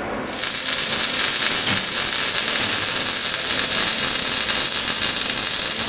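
Robotic wire-fed arc welding on steel plate: the welding arc strikes about a third of a second in, then runs as a steady, loud, high crackling hiss with spatter.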